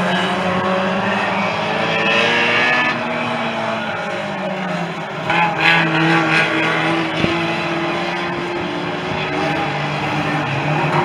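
Engines of several hot saloon racing cars, small front-wheel-drive saloons, running hard and changing pitch as the pack laps the oval. About halfway through comes a short, louder burst of higher-pitched noise.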